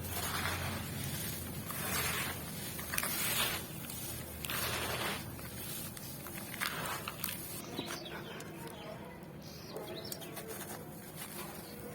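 Dry charcoal blocks being crushed and crumbled by hand, a series of gritty crunching bursts in the first seven seconds, then quieter.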